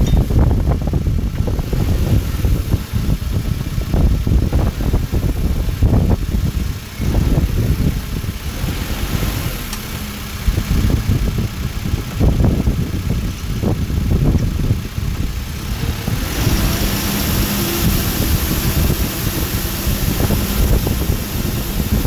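Case 580N backhoe loader's diesel engine running at low revs as the machine drives, under heavy wind buffeting on the microphone. About three-quarters of the way through, a steadier engine hum comes up.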